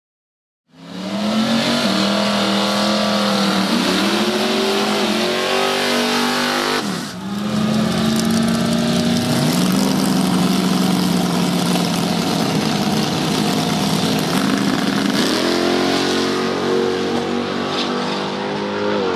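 Drag-racing car engines idling and revving at the starting line, their pitch swinging up and down. About three-quarters of the way through, the pitch climbs and holds higher as the cars launch and run at full throttle down the strip.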